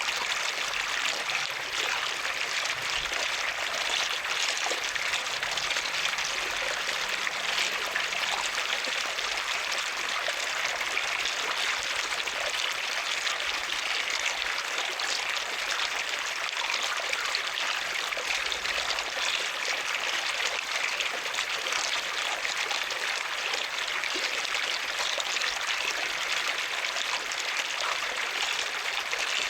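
Running water trickling and splashing steadily, an even rushing hiss with fine flickering detail that holds the same level throughout.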